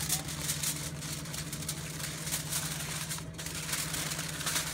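Aluminium foil crinkling in irregular bursts as it is wrapped around damp moss on a branch, over a steady low hum.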